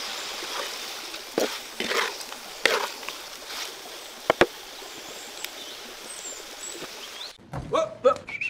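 Oil sizzling steadily in a wok as whole boiled duck eggs fry with dried red chilies, with a few scrapes and two sharp clinks of a metal spatula against the pan. Near the end the sizzle cuts off and a voice speaks.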